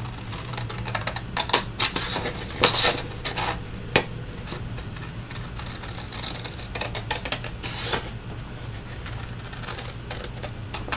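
Scissors cutting through a paper recipe card: crisp snips and the rasp of the blades sliding through the paper, in irregular runs of cuts with short pauses between them.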